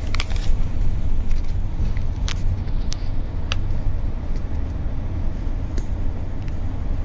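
Steady low rumble of a double-decker bus driving through a road tunnel, heard from inside the cabin, with a few short sharp clicks along the way.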